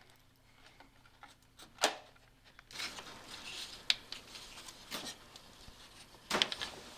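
Thin wooden stringer being handled and pressed into a wooden rib jig between its wooden blocks: several sharp wooden clicks and knocks with rustling between them.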